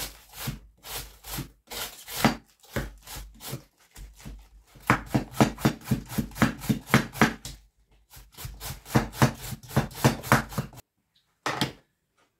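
A wide-bladed knife shredding a head of white cabbage against a wooden cutting board: a run of crisp slicing strokes, slower at first, then about three a second. The cutting stops shortly before the end, followed by one more knock.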